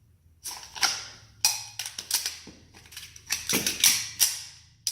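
A quick run of sharp clacks and clicks from a pistol being worked in a snap cap drill: the slide racked hard and the magazine handled, with about ten hits starting about half a second in.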